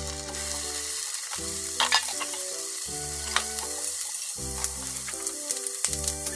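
Bacon sizzling in a rectangular tamagoyaki frying pan on a gas burner, with a steady frying hiss. Chopsticks click sharply against the pan a few times as the slices are spread out, most loudly about two seconds in.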